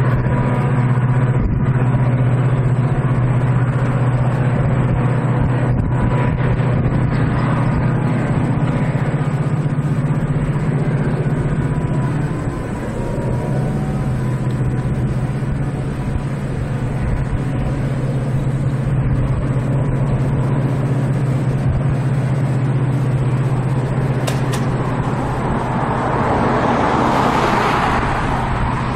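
Diesel freight locomotive hauling a coal train, approaching: a steady low drone, then a louder rushing rumble of engine and wheels that builds over the last few seconds.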